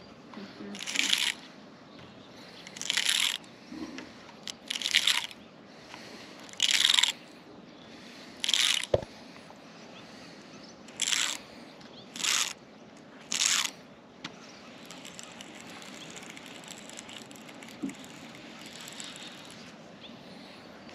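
Fishing line being stripped off a backlashed baitcasting reel in a series of short zips, about eight pulls one to two seconds apart, as the tangle is picked out. A faint steady hiss follows in the last third.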